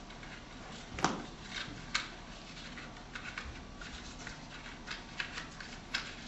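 Paper cutout puppets being slid and handled against a paper backdrop: scattered light rustles and clicks, the sharpest about a second in, about two seconds in and near the end.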